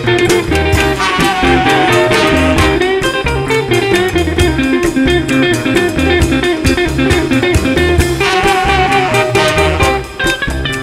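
Afrobeat band playing live: guitar, horns, double bass and percussion in a busy groove with a steady beat, dipping briefly near the end.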